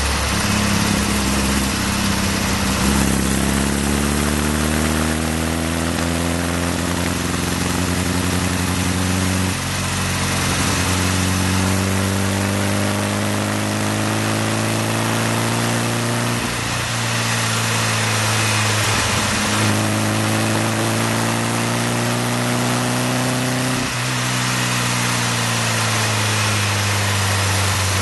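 VW T2 camper's air-cooled flat-four engine running through a JK Stainless single quiet pack exhaust while driving, heard from the rear bumper. The engine note climbs steadily and drops back sharply about four times, as at gear changes, over road and wind noise.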